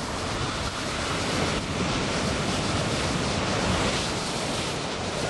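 Ocean surf: waves breaking and washing in as a steady rushing noise, with wind on the microphone.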